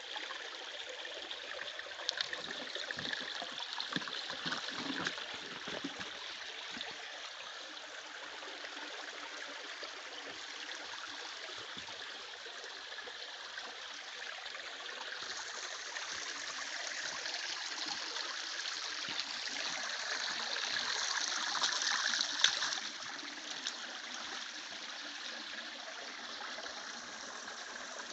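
Stream water rushing and trickling at a waterfall, a steady noise with a few sharp knocks early on. It swells for several seconds and drops back abruptly about twenty-two seconds in.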